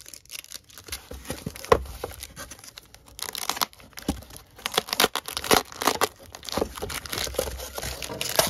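Foil wrappers of unopened baseball card packs crinkling and crackling in irregular bursts as they are handled and lifted out of a cardboard box.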